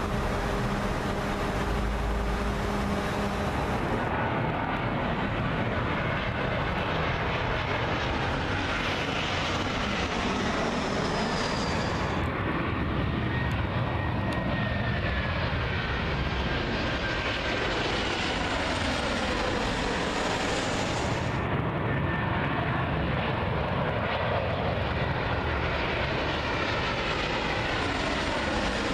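Jet airliner engines running without a break: a steady hum at first, then the engines of airliners on low final approach passing overhead, with a whine that falls in pitch as each aircraft goes by. The sound changes abruptly a few times where shots are cut together.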